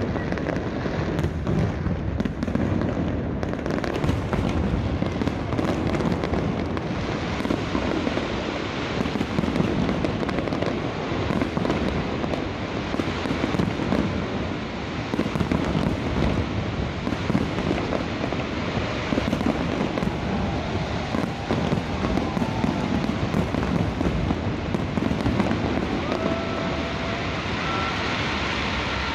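Aerial fireworks display: a dense, continuous barrage of bangs and crackling bursts, easing off near the end.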